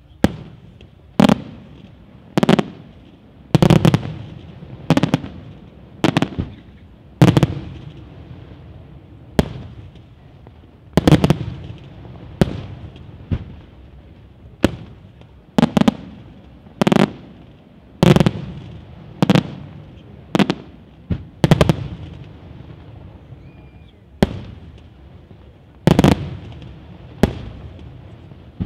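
Aerial firework shells bursting in a steady run of sharp bangs, about one a second, each with a short echoing tail.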